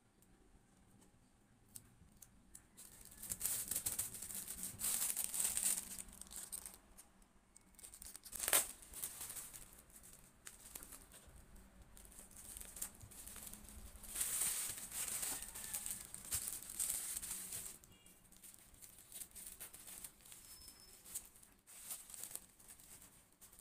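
Packing materials being handled: packaging crinkled and rustled in bursts, with a sharp click about eight and a half seconds in.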